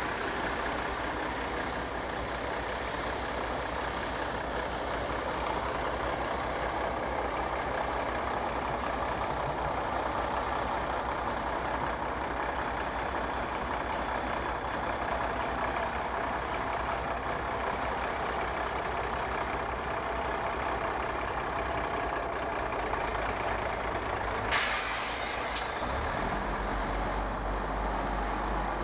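FS ALn 668 diesel railcar running, a steady engine-and-rail noise. A sharp click comes about 25 seconds in, and a deeper low hum of the engine sets in soon after as the railcar pulls away.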